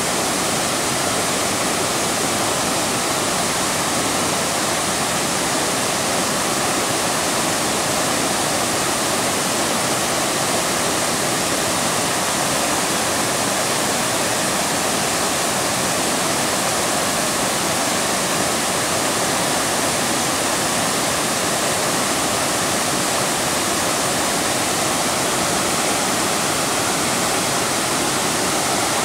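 Bald River Falls rushing: water pouring over a rock ledge and sliding down a steep rock face, a loud, steady rush with no change.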